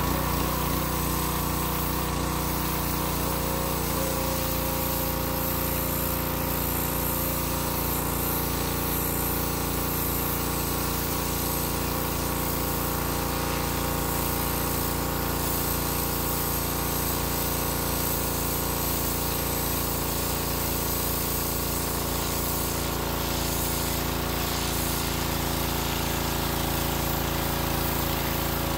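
Wilks USA TX625 petrol pressure washer running steadily under load, its 7 hp four-stroke engine humming while the turbo nozzle's jet hisses against a mossy paving slab, stripping the moss.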